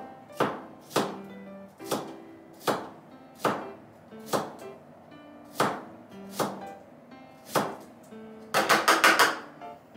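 Kitchen knife slicing myoga (Japanese ginger buds) on a cutting board: single cuts tapping the board about once a second, then a quick run of about six chops near the end. Soft background music with plucked notes underneath.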